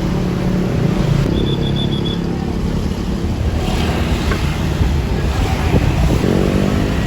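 Large tour bus engine running, its pitch rising as it speeds up near the end. A quick row of about five short high beeps sounds about a second in.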